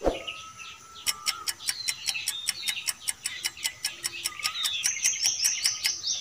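Countdown-timer sound effect ticking quickly, about five ticks a second, over a background of chirping birdsong. There is a short hit right at the start.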